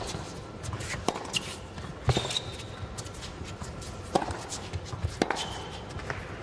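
Tennis rally on an indoor hard court: racket strikes on the ball about once a second, with short shoe squeaks on the court surface.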